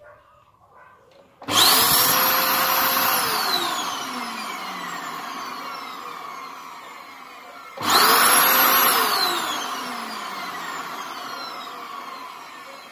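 Canister vacuum cleaner motor on a test run after repair. It starts with a loud whine that is at full speed almost at once, then winds down with a falling whine over several seconds. This happens twice, about six seconds apart.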